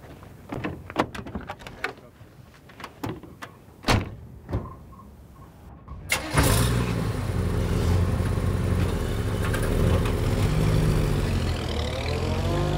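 Knocks and clicks of a car door and someone settling into the seat, then about six seconds in a vintage car's engine starts and runs steadily, rising in pitch near the end as it pulls away.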